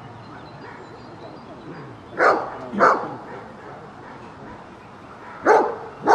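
Briard barking at a decoy in a padded bite suit: short, sharp barks in two pairs, one about two seconds in and one near the end.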